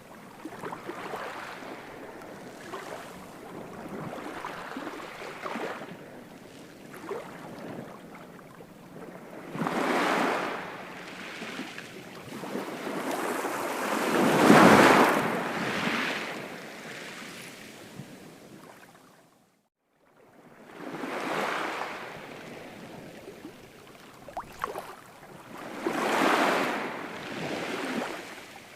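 Ocean surf: waves breaking and washing in, rising and falling in repeated surges, the loudest about halfway through. The sound cuts out for a moment about two-thirds in, then the waves resume.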